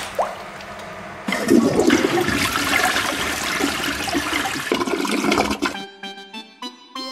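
Toilet flushing: rushing water starts about a second and a half in and cuts off suddenly about four seconds later. A few short pitched notes follow near the end.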